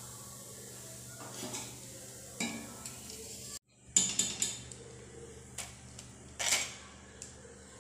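Metal slotted spoon knocking and scraping lightly against a kadhai while turning and lifting frying potato namkeen. After a brief cut about three and a half seconds in, a run of sharp metal clinks among crisp fried namkeen being tossed.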